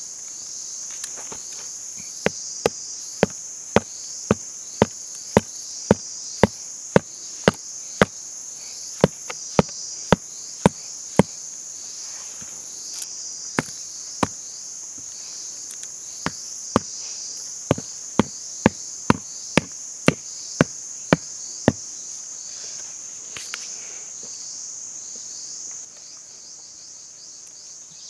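Insects shrilling steadily in the forest, under two long runs of sharp, evenly spaced knocks, about two a second, with a pause between them.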